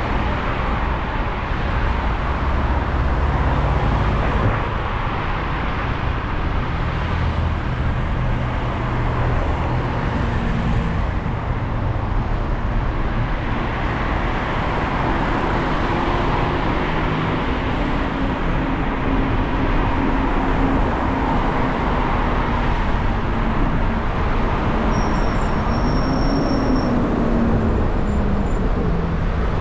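Steady road traffic noise on a rain-wet city street, with a vehicle engine hum that rises and falls briefly near the end.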